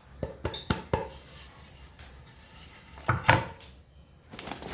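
A wooden coat rack being handled: four quick knocks and taps in the first second, then a louder clatter of knocks about three seconds in.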